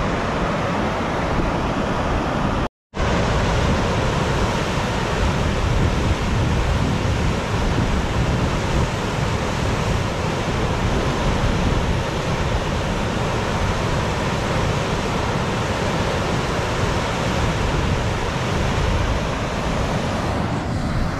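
Steady rushing noise of muddy flash-flood water flowing across a wash, with wind buffeting the microphone. The sound cuts out for a split second about three seconds in.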